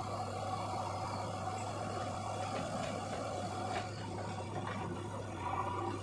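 Diesel engines of a JCB 3DX backhoe loader and a tractor running steadily, with a few light knocks around the middle.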